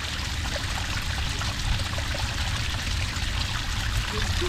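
A small cascade of water pouring steadily onto sand, trickling and splashing, with many little bubbling plinks over a low, even rush.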